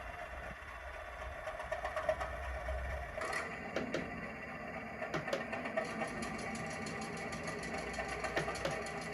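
A model class 205 'Thumper' DMU's ESU LokSound V5 decoder playing its recorded diesel unit sounds through the model's small speaker. A different sound comes in about three seconds in and adds a fast, regular mechanical clatter.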